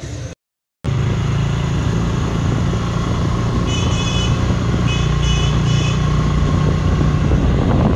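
A motor scooter riding along: a steady loud rumble of engine and wind on the microphone, starting after a moment of silence. Around the middle, a horn sounds in about four short, high-pitched toots.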